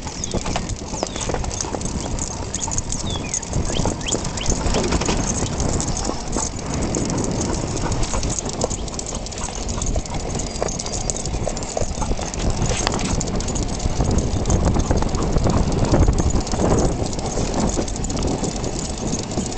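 Wind and road noise from a moving recumbent bicycle, a steady low rumble, with the paws of a young Labrador running alongside clicking on the pavement.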